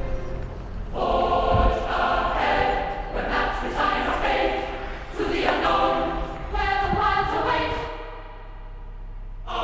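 Background music with a choir singing, coming in about a second in and easing off near the end.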